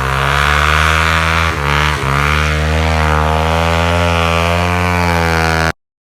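Suzuki DR-Z110 pit bike's single-cylinder four-stroke engine idling steadily while it cools down after hard running, dipping briefly twice in the first two seconds. The sound cuts off abruptly near the end.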